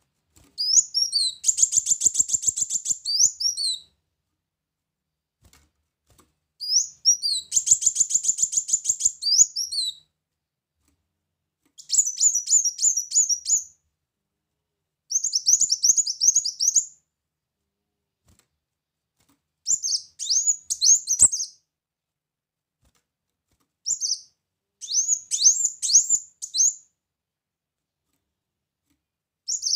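Ruby-cheeked sunbird (kolibri muncang) singing: repeated bouts of high, thin, rapid twittering, each two to three seconds long, with short pauses between.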